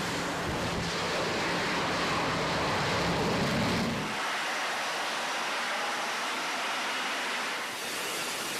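Steady rushing roar of an F-35B's jet engine as it makes a short takeoff and hovers. About four seconds in, the deep low rumble drops away, leaving a thinner hiss.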